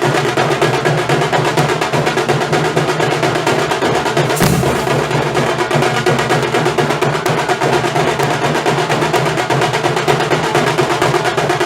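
Nasik dhol ensemble drumming: big barrel dhols and tasha drums beaten in a fast, dense, unbroken rhythm, with one sharp, louder accent about four and a half seconds in.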